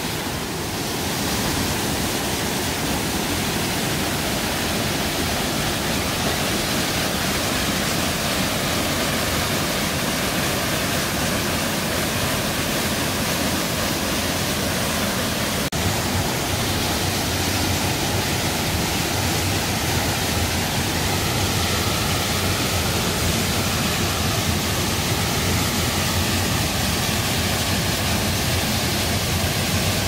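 Gaenaso Falls, a mountain waterfall about 15 m high, pouring into a deep plunge pool: a steady, full rush of falling water.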